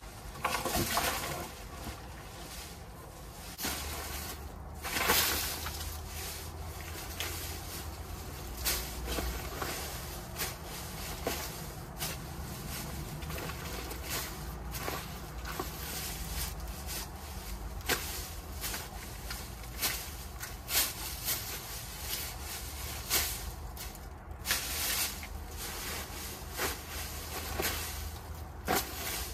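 Dry leaves rustling and crunching in irregular strokes as a long-handled garden tool is worked through a leaf pile, breaking up a compressed clump of compost and spreading it out.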